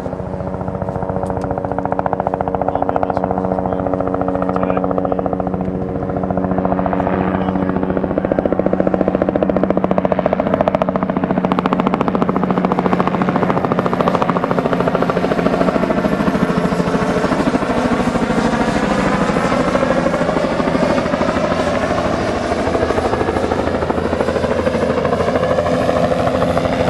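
Bell LongRanger turbine helicopter flying by: rapid rotor thudding over a steady whine from the turbine and tail rotor. It grows louder over the first couple of seconds, and its tones start to slide in pitch in the second half as it moves past.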